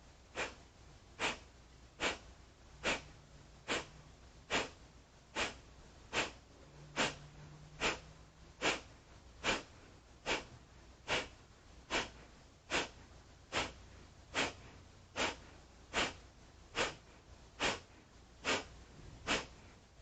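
Kapalabhati (breath of fire) breathing: short, forceful exhales pushed out through the nose at a steady pace of a little over one a second, each a sharp puff with quiet passive inhales between.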